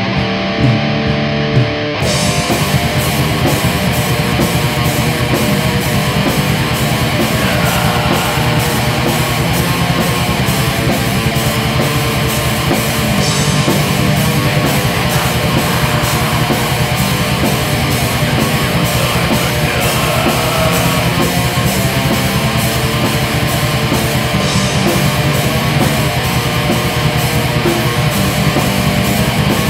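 Black metal demo recording: guitar alone for about two seconds, then the full band comes in with distorted guitars and rapid drumming that runs on without a break.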